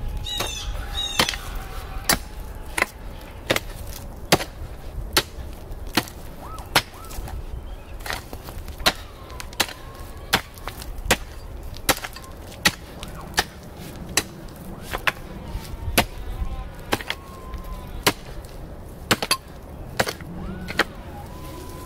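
A steel pickaxe striking hard, rocky clay soil over and over at a steady pace, about one sharp strike every 0.8 seconds. A few bird chirps come near the start.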